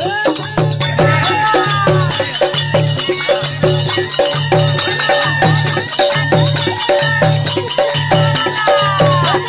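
Rajasthani folk music: a dholak barrel drum beats a steady rhythm about twice a second under dense rattling, clattering percussion.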